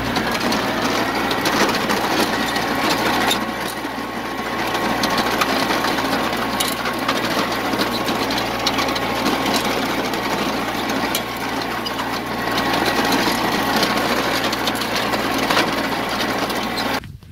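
John Deere 2320 compact diesel tractor running while it tows a 48-inch Agrifab plug aerator, the aerator's tines and weighted frame clattering steadily as they work through the turf. The sound stops abruptly near the end.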